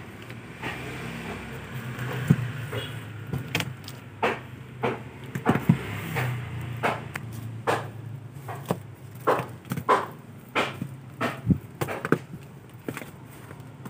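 Footsteps on a tiled floor, sharp taps coming about one or two a second, over a steady low hum.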